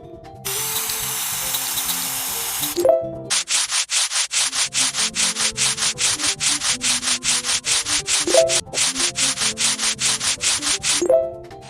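Rapid, even back-and-forth sanding strokes on the rusty metal of an old washing machine, about four or five a second, after a steady hiss in the first few seconds. A few short rising tones sound about three seconds in, past eight seconds and near the end.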